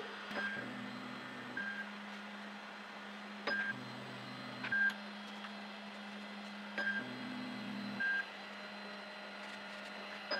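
FABX XL 3D printer beeping in short single tones that come in pairs, with a low steady whir of its stepper motors between the two beeps of each pair, over a constant low hum. This happens three times, and a fourth beep and whir begin at the very end.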